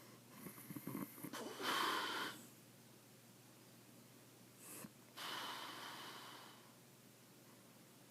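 A sleeping man snoring: a crackling, rattling snore leads into a loud breathy blast of air about two seconds in. A second, longer breathy snore follows around five seconds in and fades out.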